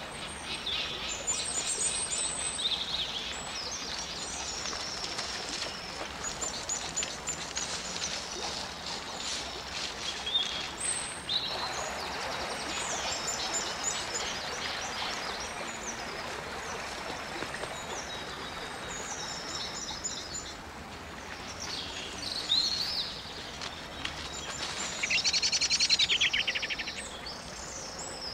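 Woodland birds singing: many short chirps and whistles, with a loud, rapid trill near the end. Running water from a stream rises in the background for a stretch in the middle.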